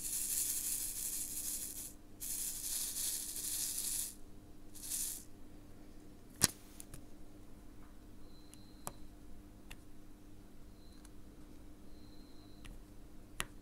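Round diamond-painting drills rattling and sliding in a plastic sorting tray as it is shaken: two rattles of about two seconds each and a shorter third. About six seconds in comes a single sharp tap, then a few faint clicks.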